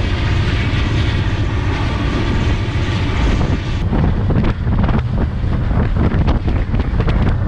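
Iron ore train running, heard from atop an open steel ore wagon: a steady low rumble with wind buffeting the microphone. About four seconds in it turns into a run of sharp knocks and rattles from the wagons.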